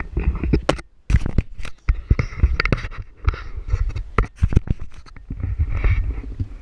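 Handling noise from an action camera on a pole being moved about: an irregular run of sharp knocks and clicks with scraping and rubbing against the camera.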